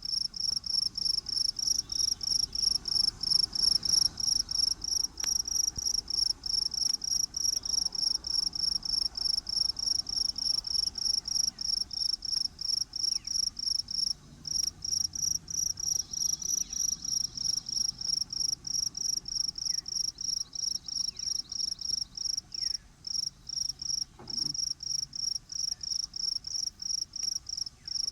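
Cricket chirping steadily in an even rhythm, about four short, high chirps a second.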